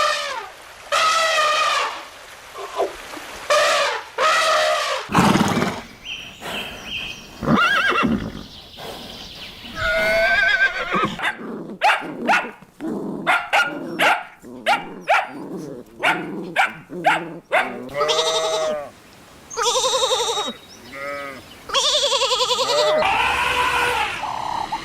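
Farm animals calling one after another, several kinds in turn: longer pitched calls, then a run of short quick calls in the middle, then longer arched calls again.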